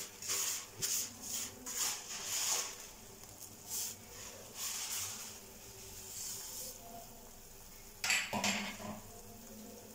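Roasted vermicelli being dropped by hand, a handful at a time, into boiling water in an aluminium kadai: a string of short, irregular swishes and rustles. About eight seconds in there is a single louder clatter of kitchenware.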